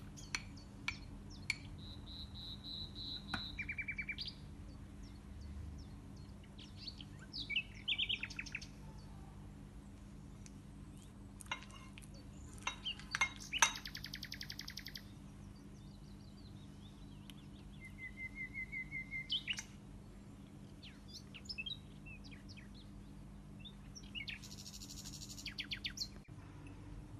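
Small birds chirping and trilling: scattered short calls and several rapid trills, over a low steady hum.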